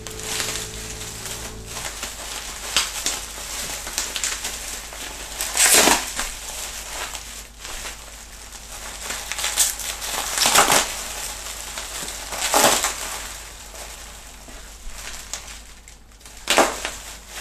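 Bubble wrap being handled and pulled open, crinkling and rustling throughout, with about four louder crunches of the plastic.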